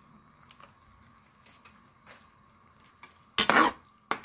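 Metal spatula scraping and knocking against a pan while stirring squid in a vinegar and soy sauce liquid: one longer scrape about three and a half seconds in, then a short knock just after. Before that it is mostly quiet, with a few faint ticks.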